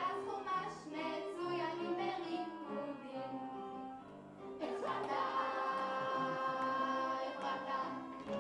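A child singing a song over musical accompaniment. About four and a half seconds in, after a brief lull, the music swells into long held notes.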